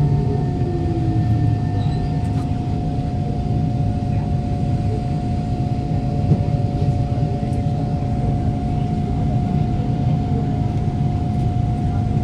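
Kawasaki C151 train with GTO-VVVF traction equipment braking into a station: the motor whine falls in pitch over the first second or two, then the car rumbles slowly to a stop over a steady electrical hum.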